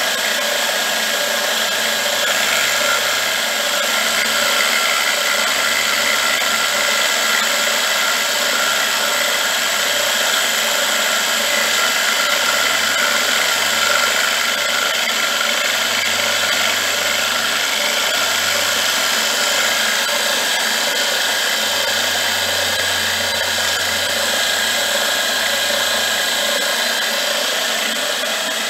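Milling machine running with its end mill cutting metal, throwing chips as the workpiece is turned on a rotary table: a steady, even machining noise.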